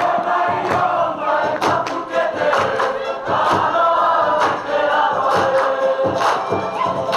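Cook Islands group performance: many voices singing together in unison, with sharp percussive beats throughout.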